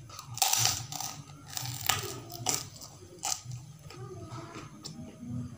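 Close-up crunching of a fried kerupuk cracker being bitten and chewed: several loud, crisp crunches in the first three seconds, then quieter, smaller crunches as it is chewed down.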